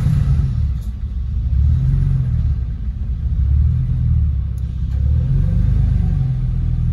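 Porsche 996's water-cooled flat-six engine idling just after start-up, the revs settling from about 1,300 to 1,000 rpm. It is being run briefly after an oil change to circulate the fresh oil.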